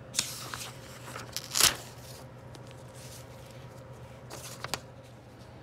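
Paper rustling and tearing as a count sheet is ripped out of a binder, with a sharp rip about a second and a half in and two lighter crackles near the end, over a steady low hum.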